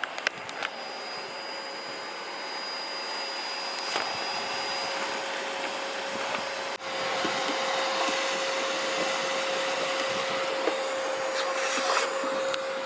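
Vacuum cleaner running steadily while it cleans out a car, a constant motor whine over a steady rush of air, with a brief drop about seven seconds in.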